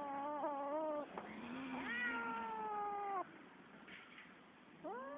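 Cat caterwauling in a fight standoff: long, drawn-out, wavering yowls. One yowl ends about a second in, another lasts about two seconds, and a third begins near the end.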